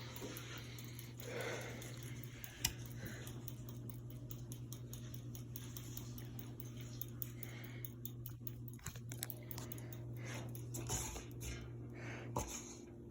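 Hunter Savoy ceiling fan running, its motor giving a steady low hum, with a couple of faint clicks.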